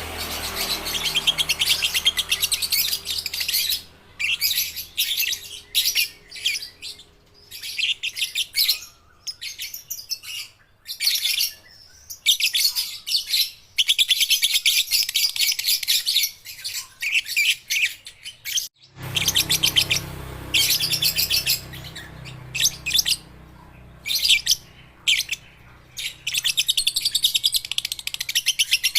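Young lovebirds chattering: rapid, high-pitched trilling calls in repeated bursts of one to three seconds with short pauses between.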